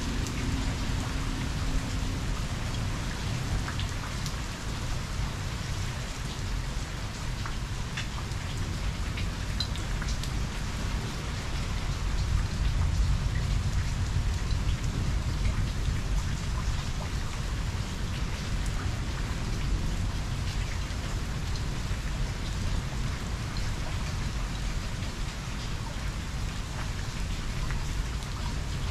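Steady rain falling on the ground and pavement, with many small drop clicks, under a low rumble of distant thunder that swells about halfway through.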